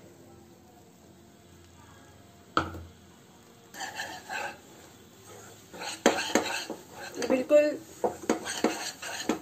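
Wire whisk clicking and scraping against a nonstick pan, working milk powder into condensed milk and ghee in quick irregular strokes. It starts after a quiet opening and a single knock about two and a half seconds in.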